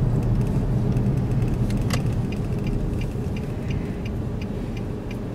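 Car cabin sound while driving: a steady low rumble of engine and road noise. From a little after two seconds in, the turn signal clicks evenly, about three clicks a second, as the car turns.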